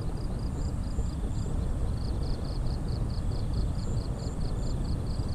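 Steady low rumble of wind on the microphone, with a faint high-pitched chirp repeating evenly about five times a second. The chirping breaks off briefly about a second and a half in.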